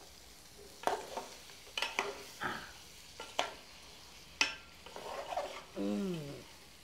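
A ladle stirring and scraping curry frying in a pot, knocking against the pot about six times, with a faint sizzle; the masala has caught on the pot's bottom. Near the end there is a short voice sound falling in pitch.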